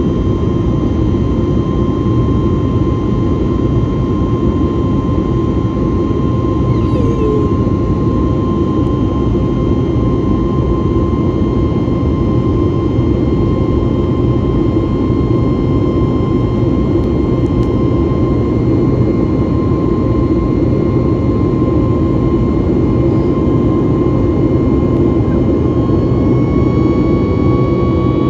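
Steady jet engine and airflow noise heard inside the cabin of a Boeing 737 MAX 8 in flight, a deep rush with a thin steady tone above it. Near the end a few higher tones join in and the main tone rises slightly.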